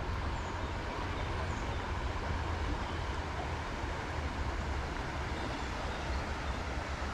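Steady rush of flowing stream water, with a low rumble underneath and no distinct events.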